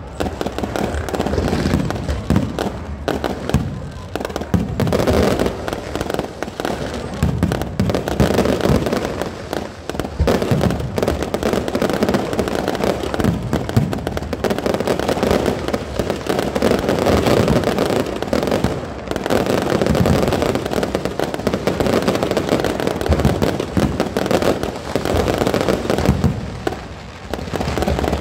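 Fireworks display going off without a break: a dense run of bangs and crackling from many shells bursting over one another, easing briefly near the end.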